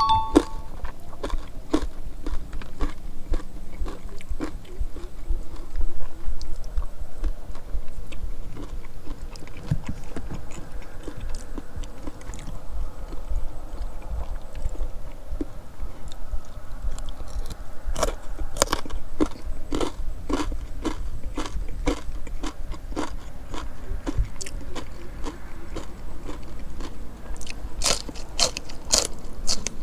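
Close-up chewing and biting of crispy pork with rice: irregular crisp crunches over steady chewing, with the crunches clustering in two runs, one about two-thirds of the way in and one near the end.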